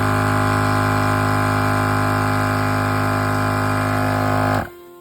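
Tozalazz 12-volt dual-head portable air compressor running steadily at full load as it inflates a tire up to about 36 psi, then stopping abruptly near the end.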